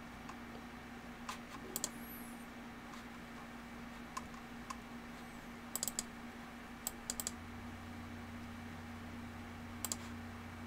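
Computer keyboard keys being pressed: scattered sharp clicks, mostly in quick pairs and triplets a second or two apart, over a steady low electrical hum.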